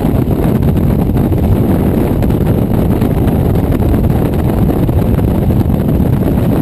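Steady wind and road noise at highway speed on a Suzuki Burgman 650 maxi-scooter, the wind buffeting the microphone in a dense low rumble that holds even throughout.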